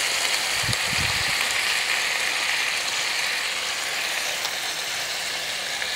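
Meat frying in a pan, a steady sizzling hiss that eases slightly as diced tomatoes are scraped in from a cutting board. A few faint low bumps about a second in.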